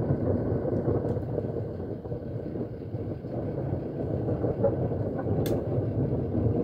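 Thunder rumbling in a long, uneven low roll, with one sharp click near the end.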